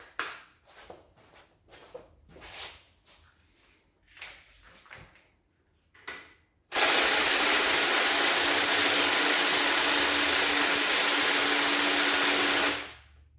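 Hand ratchet clicking in short strokes while loosening bolts. About seven seconds in, a power tool starts and runs loudly and steadily for about six seconds with a hiss and a steady hum, then stops.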